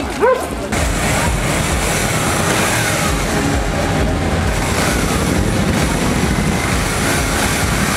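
Many motorcycle engines running together as a column of motorcyclists rolls slowly past at walking pace, a dense steady rumble with engine pitches rising and falling as riders blip the throttle. It starts abruptly just under a second in.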